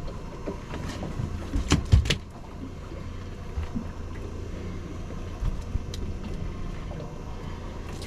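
Steady low rumble of a fishing boat's engine running, with a few sharp knocks about two seconds in.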